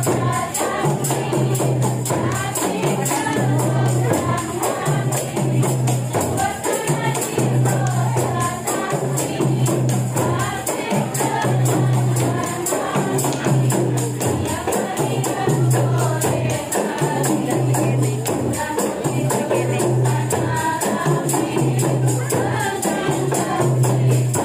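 A group of women singing together in unison while shaking and striking tambourines in a steady rhythm. A low bass line pulses underneath.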